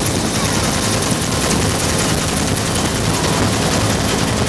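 Bell UH-1 Huey helicopter in flight, heard from inside the open-doored cabin: steady turbine noise with the rapid, even chop of its two-bladed main rotor, mixed with wind rushing through the open door.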